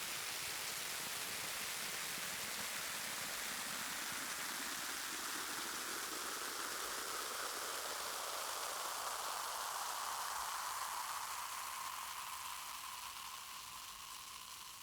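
Carbonated drink fizzing: a steady hiss of bursting bubbles that fades away over the last few seconds as the fizz dies down.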